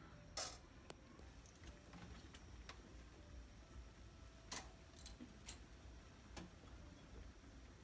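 Near silence: faint room tone broken by about five short, sharp clicks, spread out, the loudest about half a second in and at about four and a half seconds.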